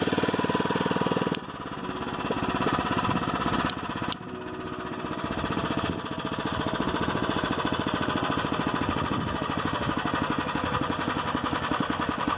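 Small motorized-bicycle engine running with a fast, even firing rhythm. Its loudness drops sharply about one and a half seconds in and again about four seconds in, then holds steady.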